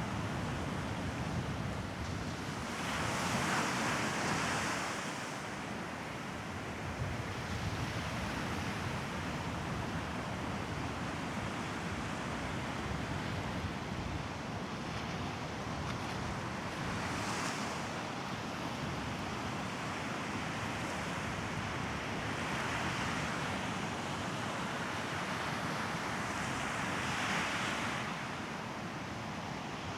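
Sea waves breaking and washing up the shore, a steady wash that swells into louder surges about four times, with wind on the microphone.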